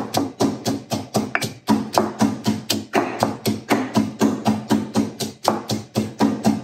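Stone pestle pounding red chillies in a granite mortar: a steady, even run of dull knocks, about four strikes a second.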